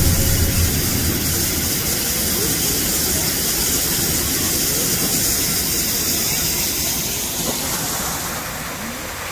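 Steady rushing of water falling from an artificial rock waterfall. A low rumble fades out in the first second.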